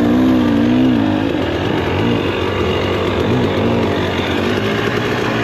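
Two-stroke dirt bike engine running and being revved, its pitch swelling and dropping several times in the first couple of seconds, then holding a steadier note.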